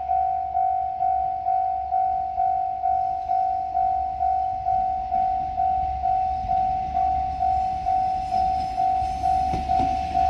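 Japanese level-crossing warning bell ringing steadily, a single clear tone struck about twice a second. Over the last few seconds a diesel train's approach rises underneath, ending in wheel clicks over the rail joints.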